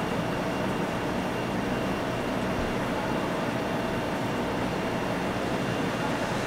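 Steady mechanical droning noise with a faint high hum.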